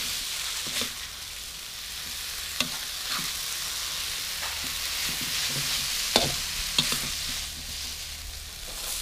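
Rice vermicelli with water mimosa sizzling in a steel wok as a metal spatula stir-fries it: a steady high hiss with a few sharp clicks of the spatula striking and scraping the wok, the loudest about six seconds in.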